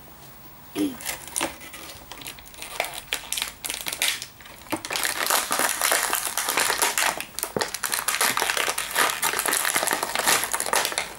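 Thin clear plastic toy packaging crinkling in the hands as a blind pack is opened, sparse at first and turning into a dense, continuous crackle about five seconds in.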